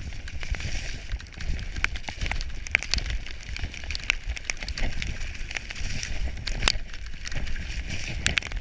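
Specialized Demo 7 downhill mountain bike running fast down a wet, muddy trail: tyres hissing and crunching over mud and stones, with constant irregular clicks and rattles from the bike, over a steady low rumble of wind on the handlebar-mounted camera's microphone.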